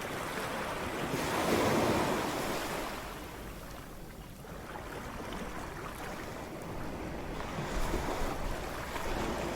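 Ocean waves breaking on a shore: one wave crashes and washes loudly about a second and a half in, the surf eases back, then another wave builds near the end.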